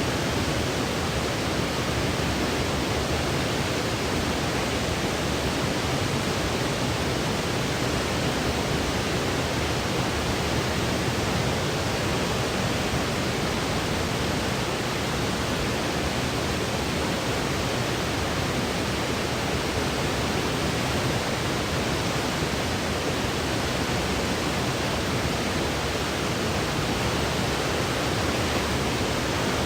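Steady artificial white noise for sleep: an even, unbroken hiss with a fuller rush in the low end and no changes in level.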